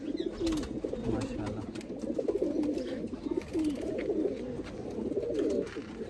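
Several domestic pigeons cooing at once, their low, wavering coos overlapping without a break.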